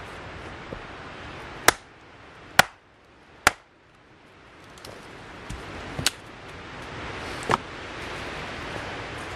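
Small axe splitting a log of firewood on a chopping block: three sharp chops about a second apart, then two lighter knocks of wood a few seconds later.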